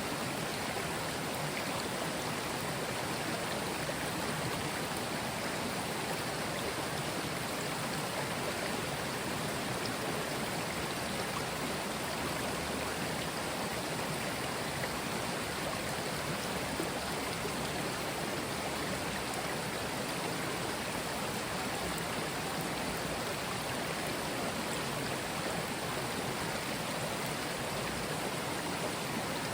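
Mountain stream flowing over stones: a steady, even rush of water.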